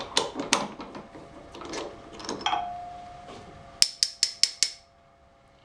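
Metal hand tools clinking and knocking during hand thread-tapping work, ending in a quick run of five sharp metallic clicks, about five a second.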